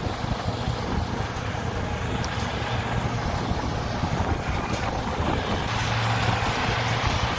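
Skid steer loader's diesel engine running steadily, with wind buffeting the microphone.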